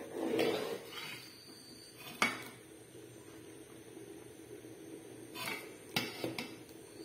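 A metal ladle stirring and scraping in a steel cooking pot of rice and lentils, then sharp clinks of the ladle against the pot. One clink comes about two seconds in, and several follow close together near the end.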